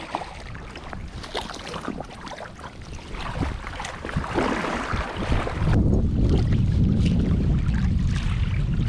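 A hooked brown trout splashing at the surface of shallow stream water, in scattered short splashes. From about six seconds in, a heavy low rumble of wind on the microphone takes over.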